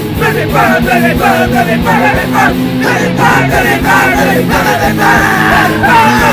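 Punk rock song playing loud and steady: distorted electric guitars over bass and drums, with a fast wavering lead line on top.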